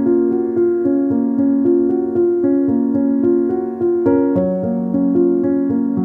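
Background keyboard music: a gentle piano-like melody with a steady run of notes, a new note every fraction of a second.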